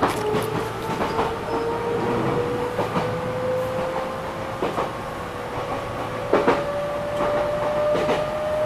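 Enshu Railway electric train heard from the driver's cab as it gathers speed: a motor whine rising slowly in pitch, with the wheels clacking over rail joints about every two seconds.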